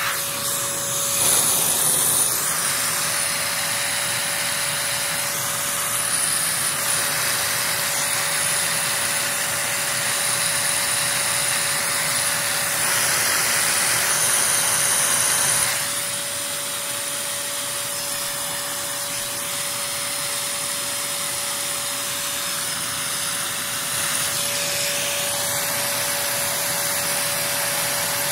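Vacuum motor running steadily for a Lego-built vacuum engine: an airy rushing hiss with a thin steady whine. It gets a little quieter about 16 seconds in.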